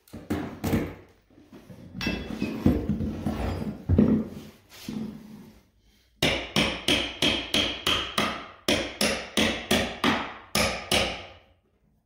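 Sledgehammer striking a steel pry bar to drive it under a carpet tack strip on a particleboard subfloor, metal on metal. A few blows come at the start, then a rougher, noisier stretch of working the bar, then a steady run of blows, about three a second, through the second half.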